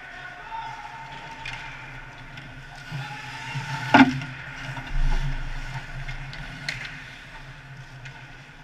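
Ice hockey play heard from the boards behind the net: faint stick and skate clicks over a steady arena hum. About halfway through comes a sharp, loud bang on the boards right beside the camera as players battle there, then a deep thump of the boards about a second later.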